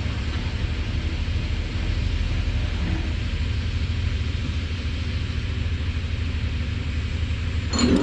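Steady low engine rumble with hiss over it, and one short sharp clank near the end.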